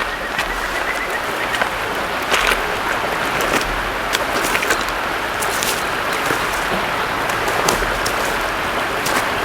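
Wood campfire crackling: a steady hiss with scattered sharp pops and snaps.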